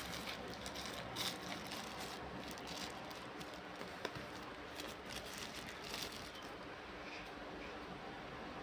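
Packaging being handled: scattered rustles and light clicks over a steady hiss, dying away about two-thirds of the way through.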